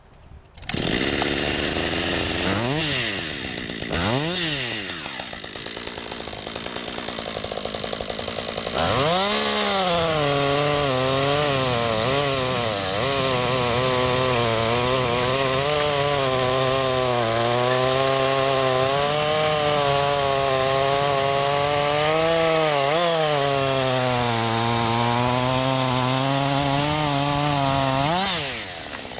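Husqvarna AutoTune chainsaw with a freshly sharpened chain: it runs with two short revs, then from about 9 s is held at full throttle cutting through a log for about 19 s, its pitch wavering under the load. Near the end the pitch rises and the engine drops back as the cut finishes.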